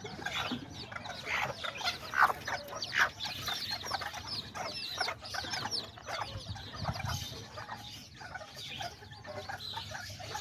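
A brood of small chicks peeping, with many quick high chirps that fall in pitch, mixed with hens clucking lower down.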